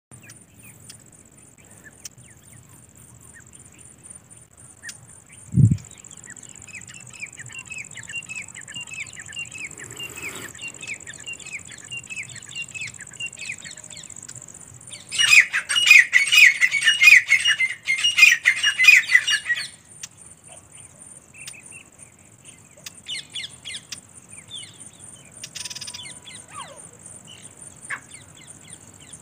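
Grey francolins calling: a run of rapid repeated notes, faint at first, then a loud burst of dense calling for about four seconds around the middle, with scattered notes after. A single low thump about five and a half seconds in.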